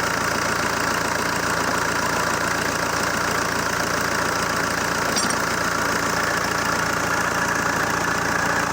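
ZMZ-514 four-cylinder turbodiesel idling steadily after being put back together from a repair for a knock.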